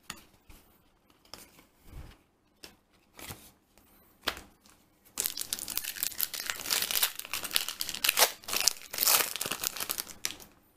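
A few faint taps and rustles of trading cards being handled, then, about five seconds in, a foil Yu-Gi-Oh! booster pack crinkling and tearing open for about five seconds.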